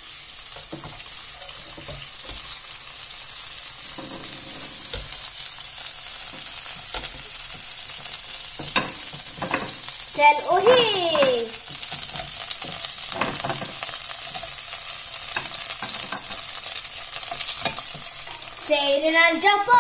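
Hot olive oil sizzling steadily in a wok as king prawns and chili fry, with scattered clicks of tongs against the pan.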